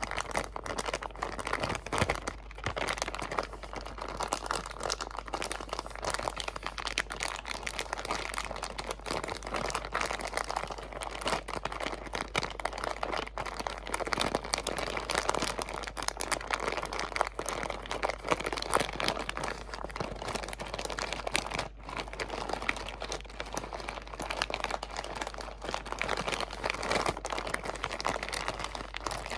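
Crinkly material crumpled and rustled by hand very close to the microphone: continuous dense crackling made of many small crisp clicks.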